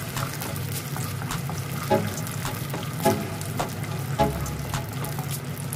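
A wooden spatula stirring raw peanuts in a stainless steel wok. The peanuts rattle and scrape across the metal in many small clicks, with a short knock about once a second.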